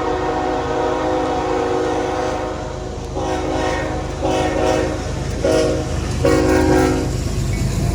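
Diesel locomotive's multi-chime air horn, over the low rumble of the train: a held blast, then a long, long, short, long sequence, the standard grade-crossing signal.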